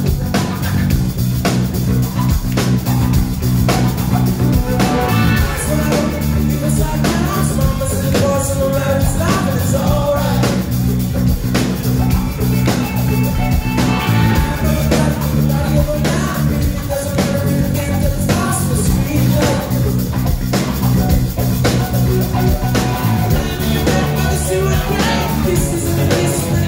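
Live rock band playing, electric guitar and drum kit, with a male lead singer whose vocal comes in about five seconds in and carries on over the band.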